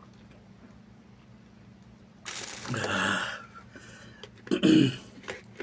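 A man who has just gulped water after spicy food lets out a long, loud breathy exhale about two seconds in, then clears his throat harshly near the end, his mouth burning from the chili heat.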